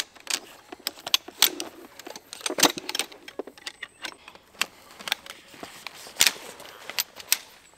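Camping gear being handled: a string of irregular sharp clicks and clacks, about a dozen scattered through, with quieter rustling between them.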